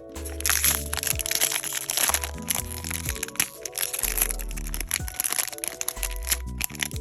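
Dense crackling and crinkling of toy packaging being handled and opened, over background music with a steady beat and bass line; the crackling stops shortly before the end.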